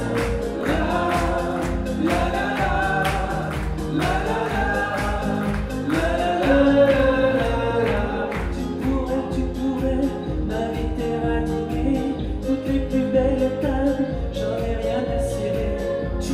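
A woman and a man singing a pop ballad together as a duet, over backing music with a steady beat.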